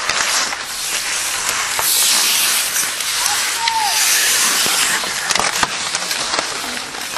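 Ice hockey play on a rink: skate blades scraping the ice in a loud hiss that swells about two and four seconds in, with sharp clacks of sticks and puck and distant shouting voices.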